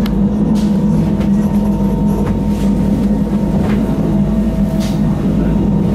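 Electric rack-railway train of the Wengernalpbahn running, heard from inside the carriage: a steady motor and gear hum with a low drone and a few faint high steady tones, with occasional light clicks and rattles.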